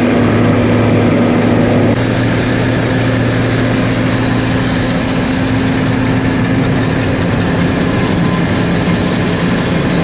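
Tractor engine running steadily with a John Deere round baler's machinery turning, as the baler's tailgate lifts and a round bale of hay rolls out.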